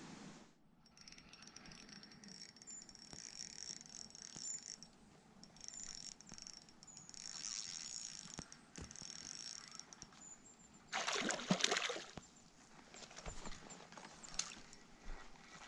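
Spinning reel being cranked, its gears and bail whirring and ticking as line is wound in, in two stretches. About eleven seconds in comes a louder rushing burst lasting about a second.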